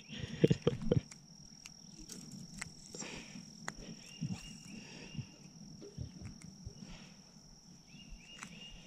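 Insects trilling steadily at one high pitch, with scattered faint clicks and knocks and two short runs of chirping notes.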